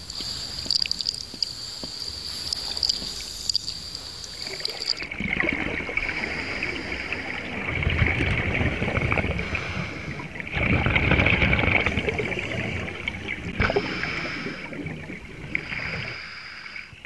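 Scuba divers breathing through their regulators underwater: a steady hiss with bursts of exhaled bubbles. The loudest bubble bursts come about eight seconds in and again around eleven seconds.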